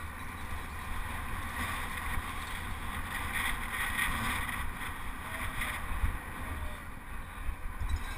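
Wind buffeting a helmet-mounted camera's microphone as a penny-farthing is ridden at racing speed: a steady low buffeting with an even hiss above it.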